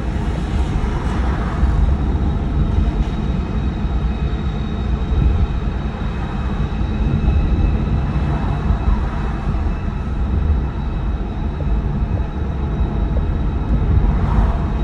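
Steady low rumble of a car driving along a road: engine and tyre noise with no sharp events.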